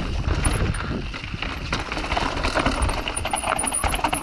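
Mountain bike rattling down a rocky trail: tyres crunching over rock and loose gravel, with many quick knocks and clatters from the bike, over a steady low rumble of wind on the camera microphone.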